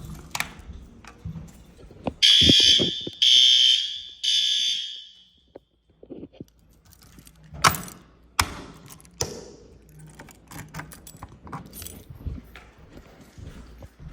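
Building fire alarm sounder, set off from a manual pull station during a system test, sounding three loud, shrill blasts about a second apart before it stops. A few sharp knocks follow.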